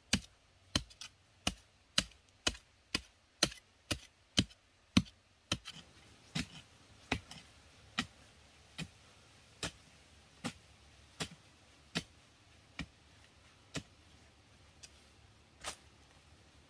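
A series of sharp, evenly paced knocks or chops, about two a second at first. After about five seconds they slow to roughly one every second and grow fainter.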